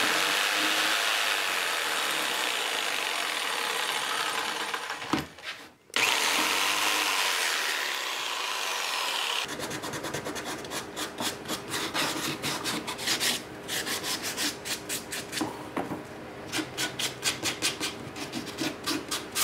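Jigsaw cutting through the small tabs that hold CNC-cut MDF letters in their sheet, with a brief stop about five seconds in. After about nine and a half seconds it gives way to hand sanding: quick back-and-forth strokes of sandpaper on the MDF edges.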